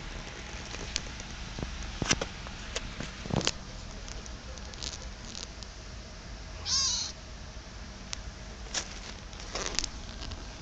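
A young kitten meows once about seven seconds in: a short, high cry that falls in pitch. A few sharp clicks and knocks are scattered around it.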